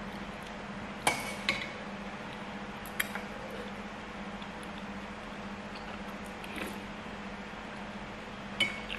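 Metal spoon clinking against a stainless steel pot of soup as it scoops, about five sharp clinks with a short ring. The loudest clinks come about a second in and near the end, over a low steady hum.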